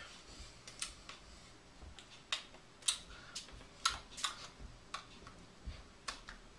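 About a dozen sharp clicks and soft slaps at irregular intervals, from hands tapping, clapping together and brushing against each other and a shirt during sign-language gestures.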